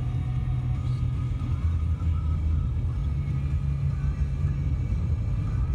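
Steady low rumble that fluctuates in strength throughout, with faint music underneath.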